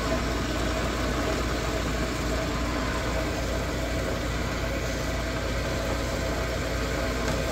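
Cabochon grinding machine's electric motor and wheels running steadily, unloaded, with a constant hum.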